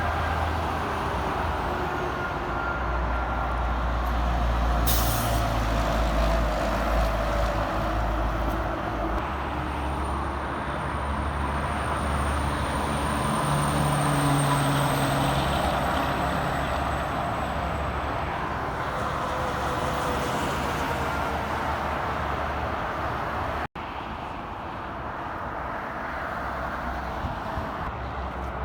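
Heavy trucks passing on a highway: steady engine and tyre noise, with a brief hiss about five seconds in and a thin high whistle that rises and fades in the middle.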